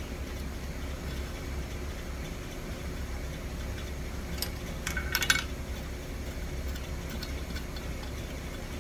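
A machine motor running with a steady low hum, and a few light metallic clinks of tools or parts a little past the middle.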